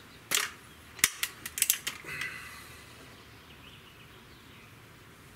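Handling clicks from an air rifle and its bipod: a brief rustle, then a quick run of about five sharp metallic clicks as the rifle is lifted and the bipod legs are worked.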